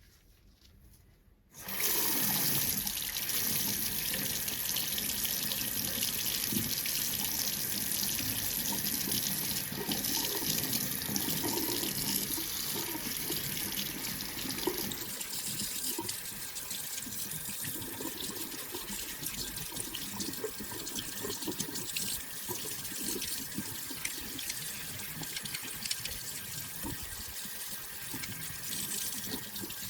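Water from a tap running into a sink, turned on about a second and a half in and then running steadily.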